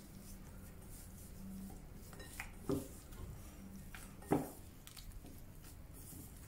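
Hands tossing shell-on shrimp in cornstarch in a glass bowl, the shrimp and fingers bumping the glass in a few soft knocks, the loudest about four seconds in.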